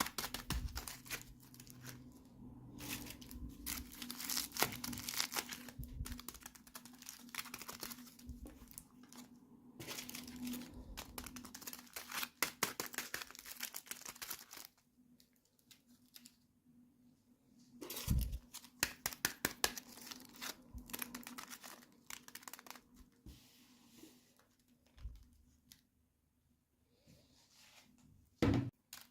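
Packaging being crinkled and torn open by hand in a doll unboxing, in bursts of rustling and tearing with short pauses between them.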